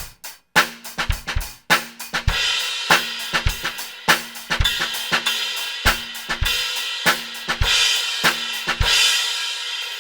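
Bosphorus Traditional XT 18-inch crash cymbal played in a drum-kit groove, with kick and snare strokes under a steady wash of cymbal. About nine seconds in the drums stop and the crash rings out alone.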